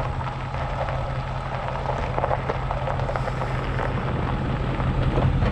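A vehicle engine running steadily, a constant low hum under a rushing background noise.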